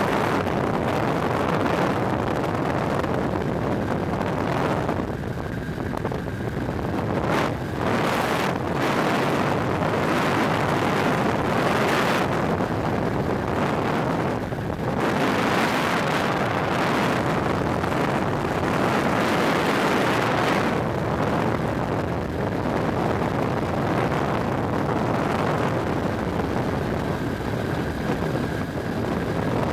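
Wind rushing over the microphone aboard a Pegasus Quik flexwing microlight in flight, with the aircraft's engine running steadily beneath it. The wind buffets harder a few times in the first half.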